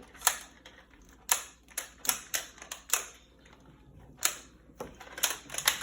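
A dozen or more sharp plastic clicks and clacks at uneven spacing, some in quick runs, from a toy foam-dart blaster's mechanism being worked by hand to clear a stuck dart.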